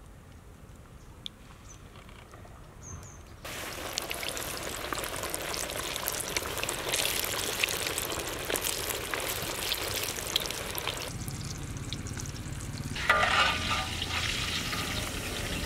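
Floured chicken pieces dropped into hot oil in a large iron wok, the oil breaking into a dense crackling sizzle about three seconds in that runs on steadily. Near the end a metal skimmer scrapes and clanks against the wok over the frying.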